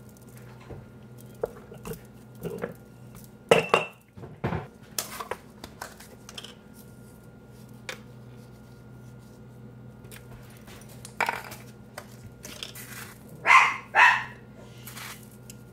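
A dog barking twice, close together, near the end. Earlier, soft knocks and rustles of seitan dough being pressed and handled on a wooden board, over a steady electrical hum.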